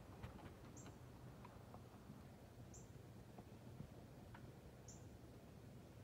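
Northern cardinal giving faint, short, high chip notes, one about every two seconds, three in all.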